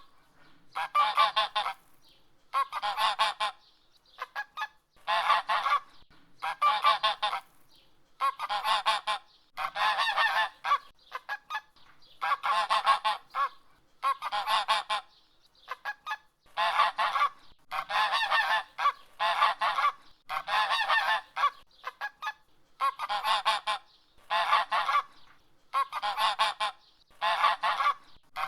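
Domestic goose honking: a long series of loud honks, each under a second to about a second long, following one another with short pauses between them.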